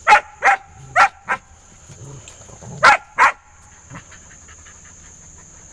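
Airedale Terrier puppy barking in short, sharp barks: four quick ones, then two more about a second and a half later. It is a play bark, trying to get another dog to come out and play.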